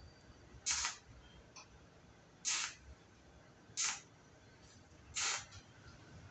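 TIG welding torch striking four short arcs on thin sheet metal, each a brief hiss about a third of a second long, coming about every second and a half as the seam is tacked.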